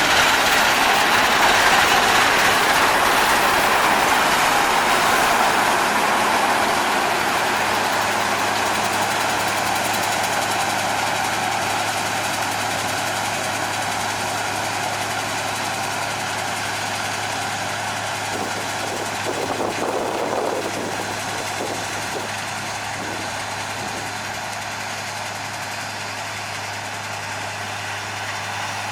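Massey Ferguson 510 combine running: a steady engine hum under a broad mechanical rush, slowly getting quieter.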